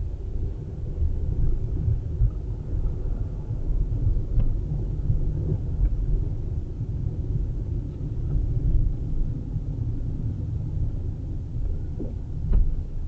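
Low, steady rumble of a car driving along a street, with a few faint clicks.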